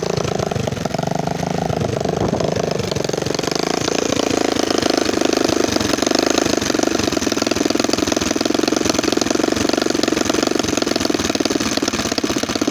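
A 200cc dirtbike's air-cooled single-cylinder engine running on its first start after a rebuild with a new head and piston kit. The revs rise and fall in the first few seconds, then hold steady.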